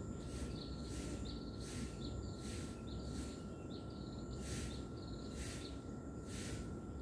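Outdoor insect chorus: high-pitched chirping pulses recurring about once or twice a second, with short repeated chirps and a steady faint whine over a low rumble.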